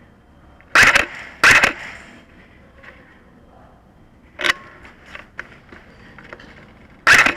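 G&P Defender MK18 airsoft electric rifle firing short bursts: two loud bursts about a second in and a second and a half in, and another near the end. There is a single sharp crack around four and a half seconds and a few fainter clicks between.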